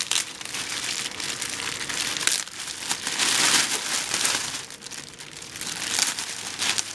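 Plastic packaging crinkling and rustling as a large boxed speaker unit is handled, with many small crackles that are loudest about three seconds in.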